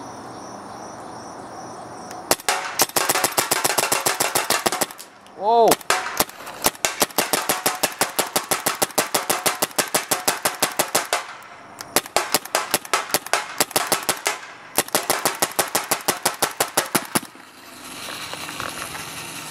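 Automag 68 Classic paintball marker firing three long strings of rapid shots, several shots a second, each a sharp crack. The strings come about a second apart.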